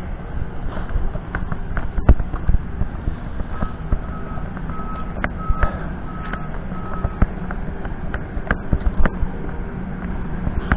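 A construction vehicle's reversing alarm sounding about seven beeps, roughly two a second, over the steady hum of its diesel engine, with scattered sharp knocks around it.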